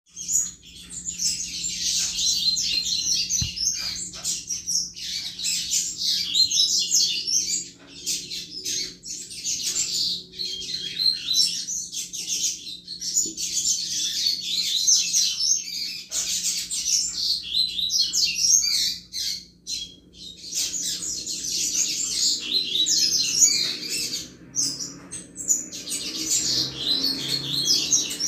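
Double-collared seedeater (coleiro) singing the 'chuva' song: long runs of very fast, high twittering chirps, broken by short pauses every few seconds. It starts abruptly.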